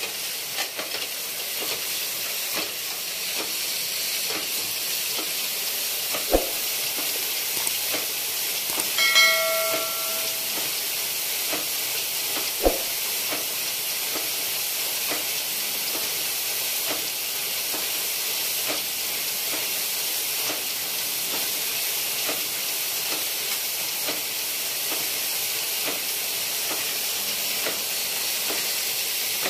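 Circular sock-knitting machines running together, a steady high hissing clatter. There are two sharp clicks, about six seconds apart, and a brief high pitched tone in between.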